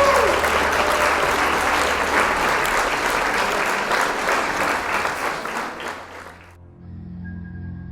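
Applause, a dense patter of many hands clapping that fades away about six and a half seconds in; quiet, low sustained music then begins.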